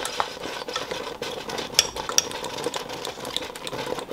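Utensil stirring thick honey and pectin powder in a glass measuring cup, with quick, irregular clinks and scrapes against the glass over a faint steady hum.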